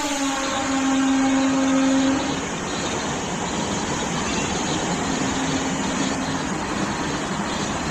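A passing express train's horn drops in pitch at the start and cuts off about two seconds in, coming back faintly later. Throughout, the coaches make a steady loud rushing noise as they run through the station at speed.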